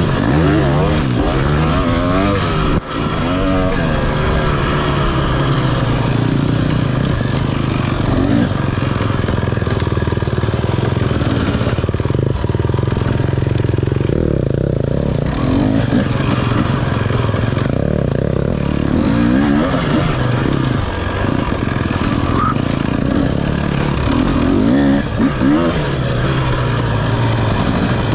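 KTM 250 dirt bike engine running under load on single track, revving up and falling back again and again with the throttle, over a steady drone.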